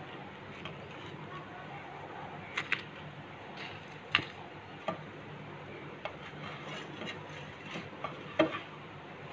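Slotted plastic spatula tapping and scraping against a nonstick frying pan as toasted sandwiches are lifted out: scattered light clicks over a low steady hum.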